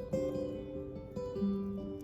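Guitar played live, improvising: plucked notes struck one after another and left ringing into each other.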